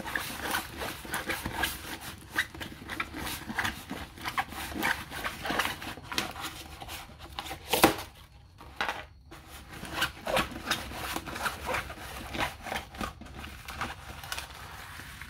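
Rustling and crinkling of a rolled diamond painting canvas with its glossy plastic cover film, handled and rolled by hand, with one sharper knock about eight seconds in.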